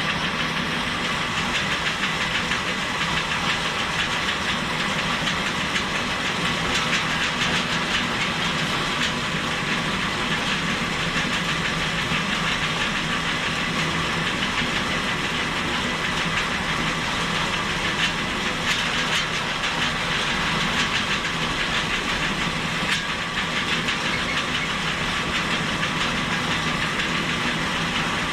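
Bale elevator running steadily with a continuous chain-and-conveyor rattle, bringing straw bales down out of a barn loft.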